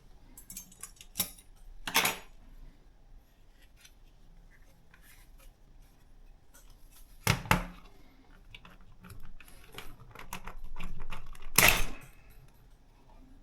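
Objects being handled: scattered light clicks, taps and rattles, with sharper knocks at about 2, 7 and 12 seconds and a brief rustle just before the last.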